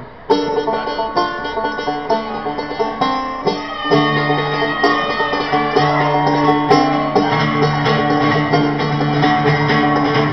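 Live acoustic band opening a song with quick banjo picking over acoustic guitar. The band fills out and gets louder about four seconds in, with bass guitar under it.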